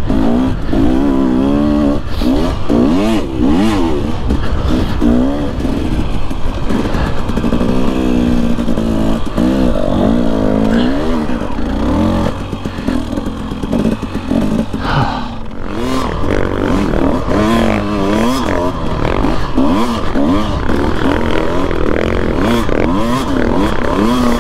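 KTM dirt bike's engine close up, revving up and down over and over as it is ridden through snow.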